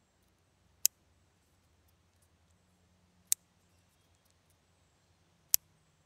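Clothespin clicking three times, each a single sharp snap, about two and a half seconds apart.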